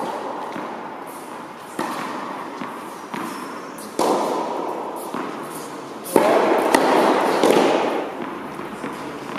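Three sharp tennis ball impacts about two seconds apart, each ringing on in a long echo around an indoor tennis hall. The last one, about six seconds in, is the loudest.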